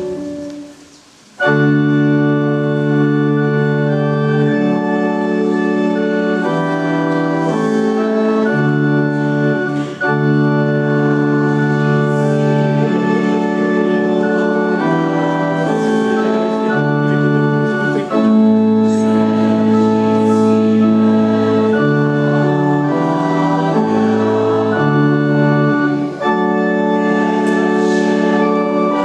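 Organ playing slow sustained chords that change every second or so, starting about a second and a half in after a brief pause.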